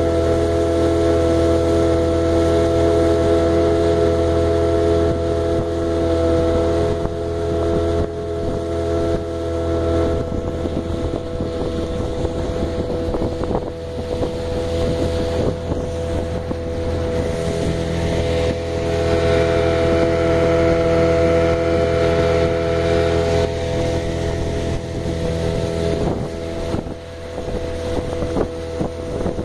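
Small metal river boat's motor running steadily under way, a constant drone with a low hum beneath it, with wind buffeting the microphone.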